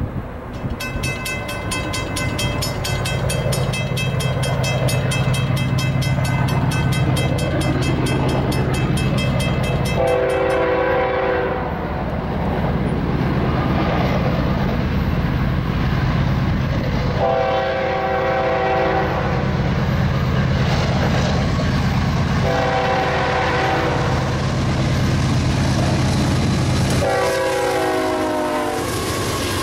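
Approaching diesel freight locomotives, their engines a steady low rumble that builds as the train comes nearer, sounding the air horn in several long blasts from about ten seconds in. The last blast drops in pitch as the lead locomotives pass close by.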